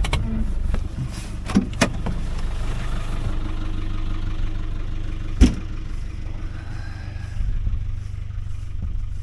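Farm vehicle's engine running steadily at low speed, with a few sharp knocks and clunks, the loudest about five seconds in.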